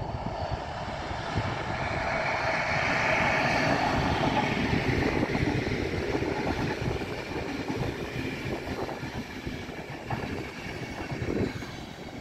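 A long passenger train passing, its rumble and wheel-on-rail noise rising to a peak a few seconds in, then fading as the coaches run by.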